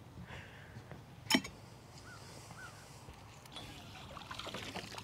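A single sharp knock about a second in, then, from about three and a half seconds, water trickling and dripping off a magnet-fishing rope and its catch as they are pulled up out of the lake.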